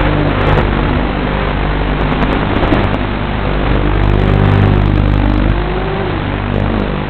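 Racing quadcopter's brushless motors and propellers in flight: a steady buzzing drone with a whine that rises and falls in pitch as the throttle changes.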